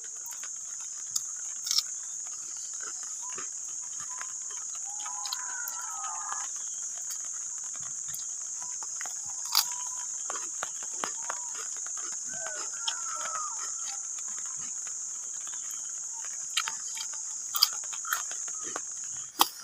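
Steady high-pitched insect buzz, with scattered light clicks of a spoon against a bowl and two brief wavering calls about five and twelve seconds in.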